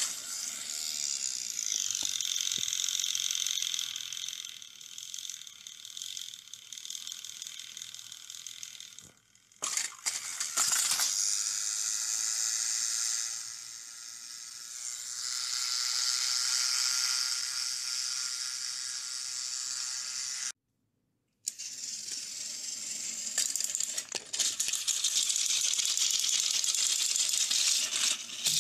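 Small battery-powered toy train motors and gearboxes whirring, with plastic wheels rattling and clicking along plastic track. The sound breaks off twice, abruptly, and ends with plastic clattering as the trains tumble off the track.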